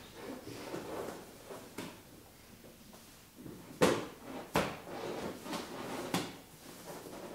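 Handling noise as the Ski evacuation sheet's straps and end pulling handles are tucked in around a vinyl-covered hospital mattress at the foot of a hospital bed. Soft rustling comes first, then a few sharp knocks in the second half.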